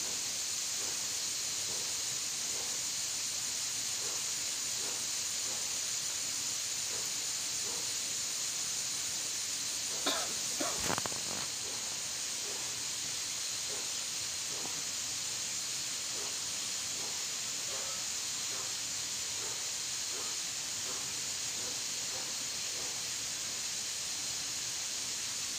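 Steady high-pitched hiss of an insect chorus, with a short burst of clicks about ten seconds in.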